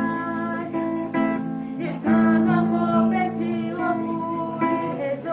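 Acoustic guitar strummed in chords, with a voice singing along.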